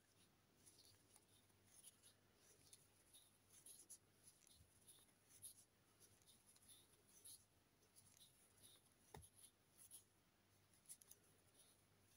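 Near silence with faint, irregular soft ticks and rustles of a crochet hook working yarn, stitching single crochet along a row.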